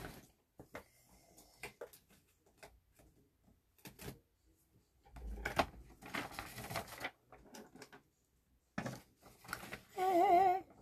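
Scattered clicks, taps and rustling from a device being handled close to the microphone, with a longer rustle about five to seven seconds in. Near the end comes a woman's brief wavering vocal "ooh".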